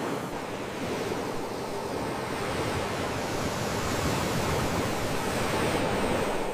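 Sea waves washing in a steady rush of surf, swelling slowly toward the end.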